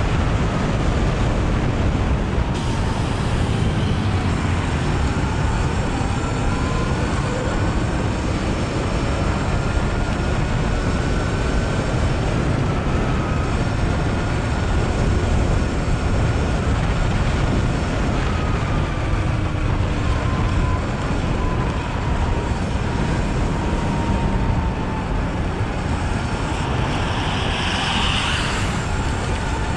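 Sur-Ron electric dirt bike riding, its electric motor whining in a pitch that slowly rises and falls with speed, over a steady rumble of wind and road noise.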